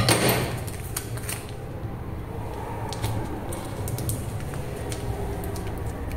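Hands handling cardboard and clear sticky tape: a knock right at the start, then small scattered clicks and rustles as the tape is pressed onto the cardboard, over a steady low hum.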